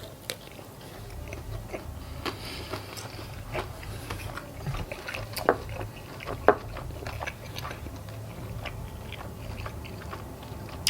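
Close-up chewing and biting on fried chicken wings, with many small wet clicks and two sharper cracks about halfway through, typical of chicken bones being bitten through.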